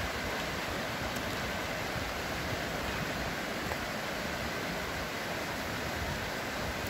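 Fast mountain river rushing over stones in shallow rapids: a steady, unbroken rush of water.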